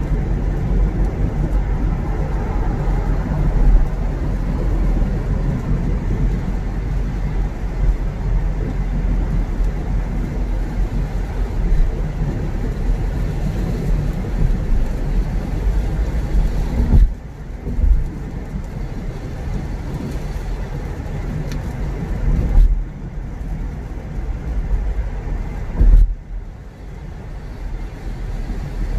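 Car driving, with a steady rush of road and tyre noise. About two-thirds of the way through it drops quieter, broken by a few short low thumps.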